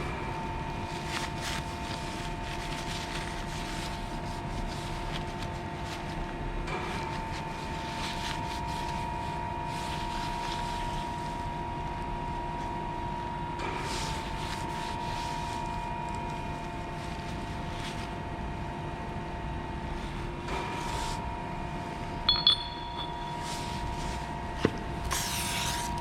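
A machine in a metalworking shop running with a steady hum whose pitch shifts slightly every several seconds, with occasional light metallic clinks and clicks.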